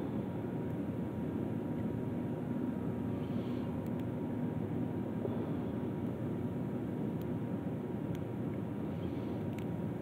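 A steady low rumble, with a few faint, sharp clicks scattered through it from lock picks working the pins of a Master Lock 150 padlock.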